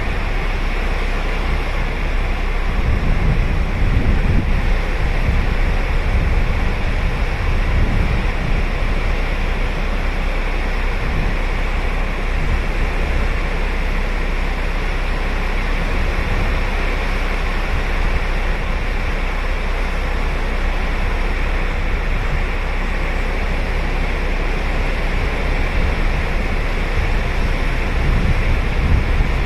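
Ocean surf breaking and washing onto a sandy beach: a steady rush of waves with a deep low rumble, swelling a little about three to four seconds in and again near the end.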